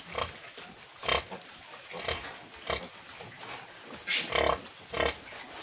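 Sow grunting while she nurses her newborn litter: short low grunts, roughly one a second.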